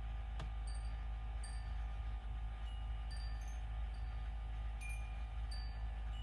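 Scattered short, high ringing tones at several different pitches, a few each second like small chimes, over a steady low rumble, with a single sharp click about half a second in.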